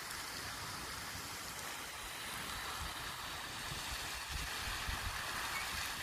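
Steady hiss of a pond fountain's jet spray falling back onto the water, with uneven low rumbles underneath.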